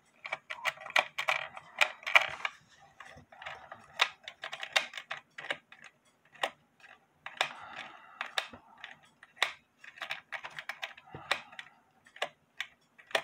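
Wooden cuckoo clock case and its brass movement being handled: a run of irregular small clicks, knocks and rattles as it is turned over in the hands.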